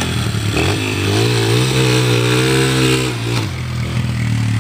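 Small dirt bike engine revving as the rider pulls away: the pitch climbs over the first second or two and holds, then drops back to a lower steady note about three seconds in.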